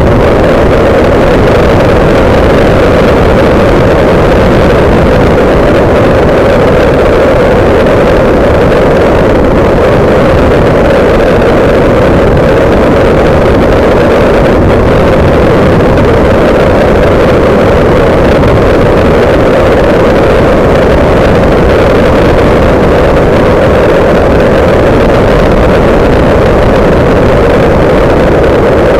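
Kolb Mark III ultralight's engine running loud and steady at takeoff power through the takeoff roll, lift-off and climb-out, with airflow buffeting the camera's microphone.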